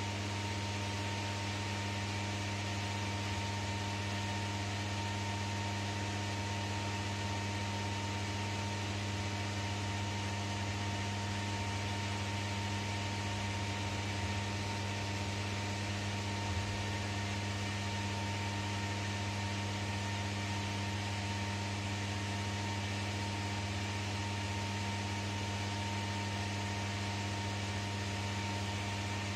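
Steady electrical hum with an even fan-like hiss inside an enclosed Ferris wheel cabin, from the cabin's climate-control unit running.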